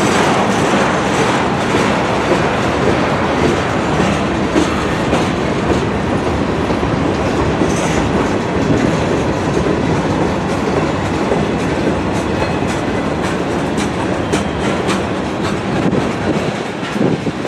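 CN freight train's tank cars and covered hoppers rolling past, a steady rumble of steel wheels with frequent clacks over the rail joints.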